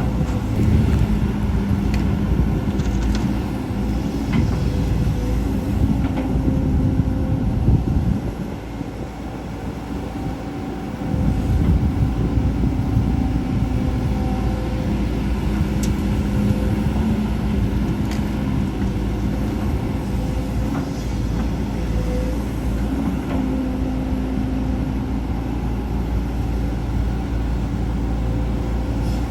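Volvo EC210D excavator's diesel engine running hard with a steady drone under working load. A few sharp metallic clanks come through. The engine eases off briefly about eight seconds in, then picks up again about three seconds later.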